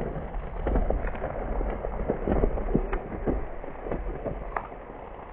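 Coke foaming out of a bottle with Mentos dropped in: a crackling fizz with many small spatters of liquid over a low rumble, dying down toward the end.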